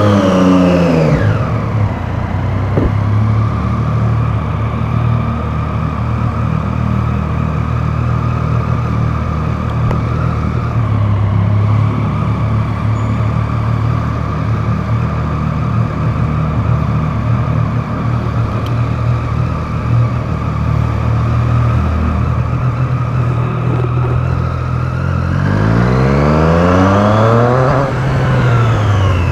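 Motorcycle engine running at a steady pace, dropping in pitch as it eases off right at the start. Near the end it revs up in one long rising pull and then falls back.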